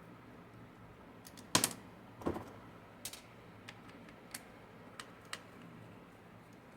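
Small clicks and knocks of a screwdriver and plastic parts while a Mercedes Actros MP4 gear selector module is being unscrewed and taken apart: two louder knocks in the first half, then several light clicks.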